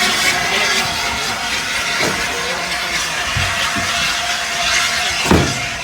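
Peppercorn A1 steam locomotive 60163 Tornado with a steady hiss of steam, and a couple of knocks, the louder one near the end.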